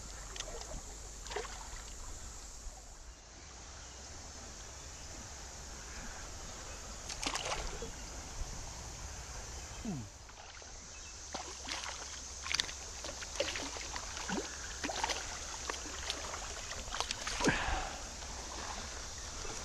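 Creek water sloshing and splashing in scattered short bursts, more often in the second half, over a steady high hiss.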